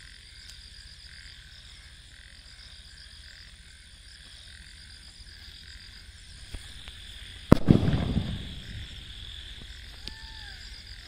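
A big-size 'VIP' Diwali firecracker bomb goes off with a single loud bang about seven and a half seconds in, trailing off in a short rumbling echo.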